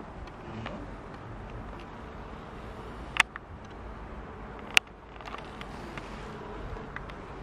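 Steady buzzing background hum of a locomotive repair shop, broken by two sharp knocks about a second and a half apart, the loudest sounds here.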